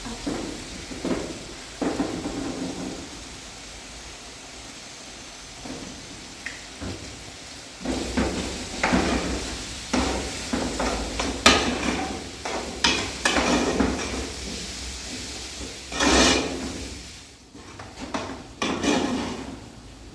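Irregular knocks, clatter and rustling of objects being handled, over a steady noisy background, busiest in the second half with one louder burst near the end.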